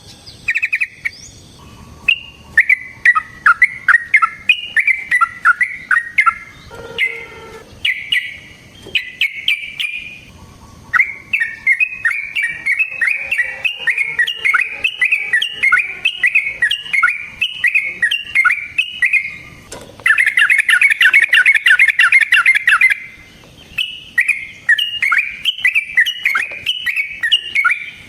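Yellow-vented bulbul singing long, rapid runs of short chirping notes with brief pauses. One especially fast, dense run comes about two-thirds of the way through.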